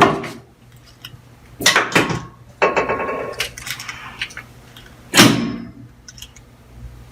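Chiropractic adjustment table knocking and rattling during a lower-back adjustment: a sharp knock right at the start, two more about two seconds in, a rattle about three seconds in, and a last knock about five seconds in.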